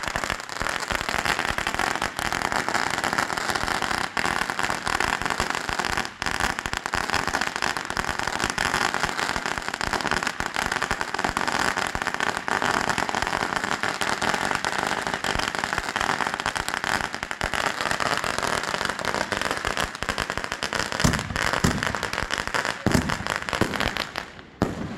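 Consumer aerial fireworks going off in a dense, unbroken barrage of rapid crackling and popping, with a few louder bangs near the end before it stops abruptly.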